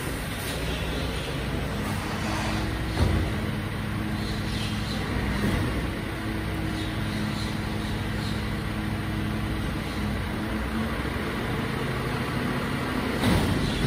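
Mercedes-Benz Arocs rear-end-loader garbage truck running steadily while it is loaded at the rear. There is a sharp knock about three seconds in and a clatter near the end.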